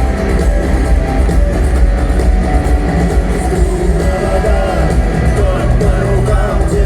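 Live rock band playing loud in an arena: electric guitars over heavy bass and drums, with singing starting to come in near the end.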